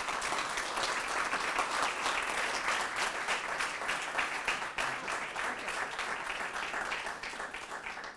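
Audience applauding, the dense clapping easing off slightly near the end.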